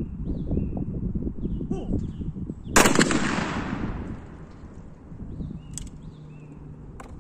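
A single shotgun shot about three seconds in, ringing off in a long fading echo across the range, over a low rumble of wind on the microphone.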